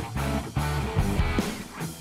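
Background music led by guitar, with notes struck at a regular pace.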